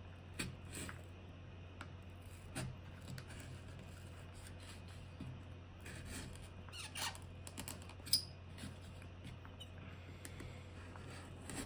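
Craft-knife blade scraping and cutting into a stiff cardboard tube. The strokes are scattered and scratchy, with a sharper click about eight seconds in.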